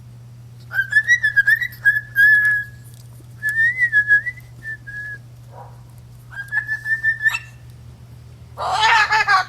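Moluccan cockatoo doing its budgie voice: high, thin, fluttering chatter in four short bursts, then a louder, lower call near the end.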